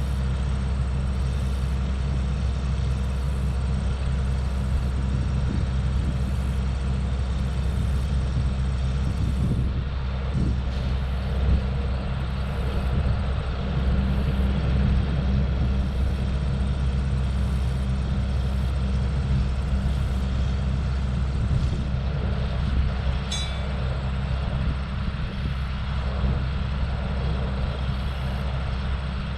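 Combine harvester running steadily through the field, a constant low engine drone.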